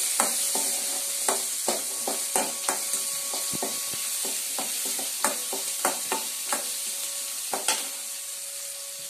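Small onions and garlic cloves sizzling in sesame oil in a metal kadai, with a steel ladle stirring and clinking against the pan at irregular intervals until near the end.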